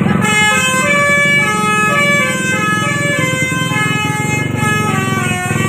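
Tour bus 'telolet' musical horn playing a quick tune of stepped notes, several tones sounding together, starting a moment in. The bus engine runs underneath as a low rumble.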